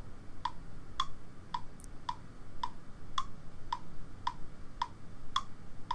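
Metronome ticking at a steady moderate tempo, just under two ticks a second, with every fourth tick brighter, marking the downbeat of each bar.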